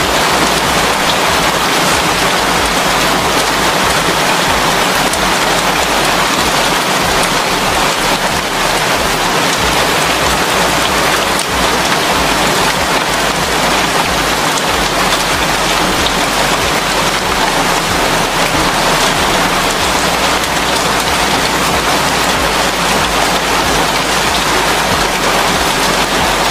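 Heavy rain falling steadily on corrugated iron roofs, with water streaming off the roof edges.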